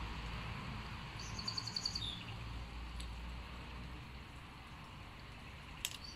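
A bird calling: a quick run of high chirps about a second in, ending in a short falling note, over steady outdoor background noise. A single sharp click near the end.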